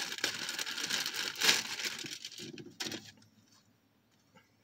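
Clear plastic bag crinkling and rustling in the hands as a plush toy is handled and worked out of it, with a louder crackle about a second and a half in, stopping about three seconds in.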